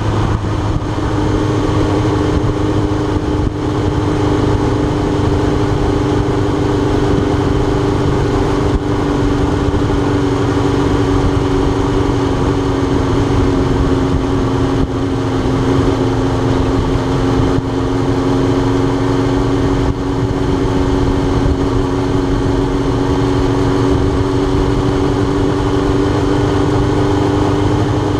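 Suzuki GSX-R1000's inline-four engine running at steady part-throttle cruising revs, heard from on the bike. Its pitch sags gently over the first several seconds, then slowly climbs again.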